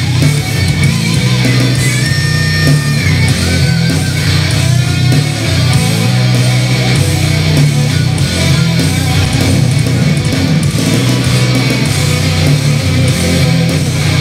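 Heavy rock music with electric guitar and a strong, steady bass, played loud through the Genius SP-HF1800A speakers during a sound test.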